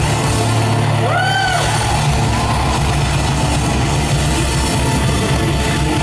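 Live band playing an upbeat pop-rock instrumental passage on electric guitar, keyboards and drums through a concert PA, with a short rising-and-falling pitched sound about a second in.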